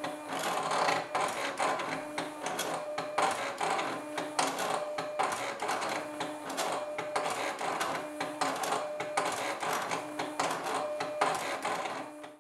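Silhouette Portrait cutting machine cutting a sheet of stickers: its motors whirr in short stop-start strokes as the blade carriage and rollers move, with frequent small clicks.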